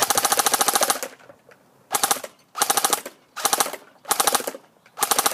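SRC G36C airsoft electric rifle (AEG) firing on full auto: one burst of about a second, then five shorter bursts, each a rapid, even rattle of shots.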